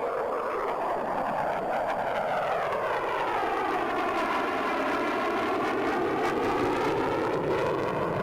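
F-4 Phantom II's twin J79 jet engines rushing steadily as the jet passes, the tone of the roar sweeping slowly down and back up.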